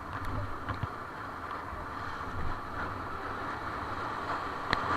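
Whitewater rushing and splashing around a raft being paddled through a rapid, with a sharp knock near the end.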